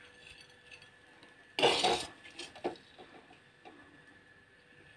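A steel spoon clinking and scraping on a glass plate as fried beef is served. A sudden loud short burst comes about a second and a half in, with a couple of smaller knocks just after.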